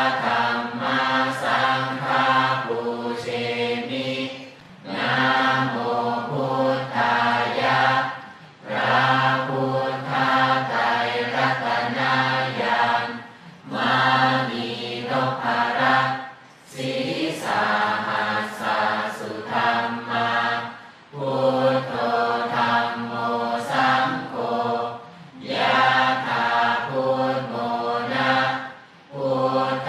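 A large group chanting a Buddhist chant in unison. The chant comes in phrases of about four seconds, each followed by a short pause for breath.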